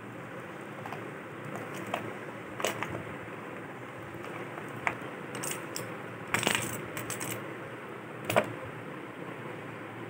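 Small plastic paint jars and paintbrushes being set down and moved about on a tabletop: scattered light clacks and knocks, a cluster about six and a half seconds in and the sharpest knock about eight seconds in, over a steady low hiss.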